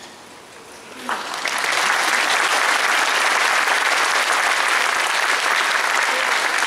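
Audience applauding, starting about a second in and quickly building to steady, loud clapping.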